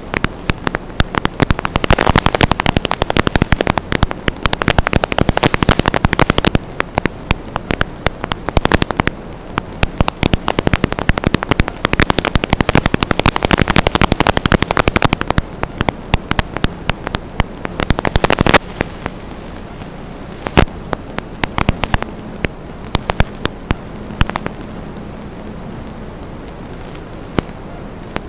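Crackling static on an analog FPV video link's audio channel: dense clicks for the first fifteen seconds or so, thinning to scattered pops after about eighteen seconds, over a faint steady hum.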